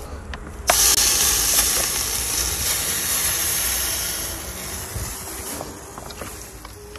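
A knock about a second in, then a loud hissing rush from a downhill mountain bike's tyres on loose dirt and air over the action camera, slowly fading.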